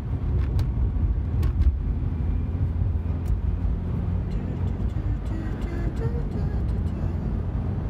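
Car cabin noise while driving: a steady low road and engine rumble heard from inside the car, with a few faint clicks.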